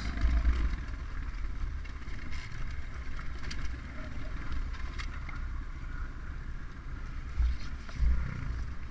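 Dirt bike engine running steadily at low throttle, with no hard revving, and a low wind rumble on the microphone.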